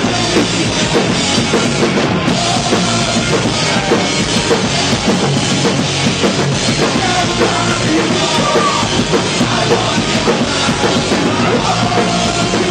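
Pop-punk band playing live, loud and steady: a drum kit driving the beat under electric guitars.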